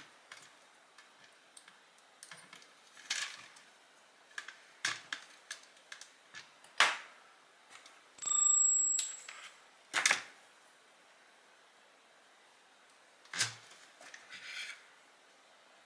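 Scattered clicks and knocks of small parts and tools being handled during the repair of a Dyson cleaner head, with a steady high beep lasting about a second, roughly eight seconds in.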